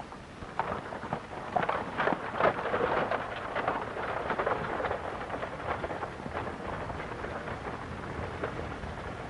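Horse-drawn stagecoach pulling away: a dense, irregular clatter of hoofbeats and wheels over a rumble, busiest in the first few seconds and then settling into a steadier rumble.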